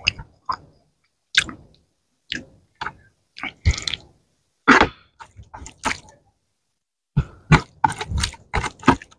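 Close-miked eating by hand: short, irregular bursts of wet chewing and mouth sounds, with fingers squishing rice mixed with fish curry gravy, and brief silences between.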